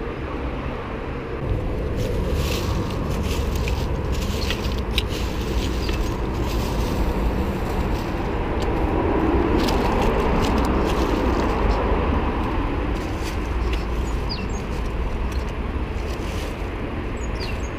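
Steady road-traffic rumble that swells about ten seconds in as a vehicle passes. Over it come scattered light clicks and rustles from a litter picker and steps in dead leaves.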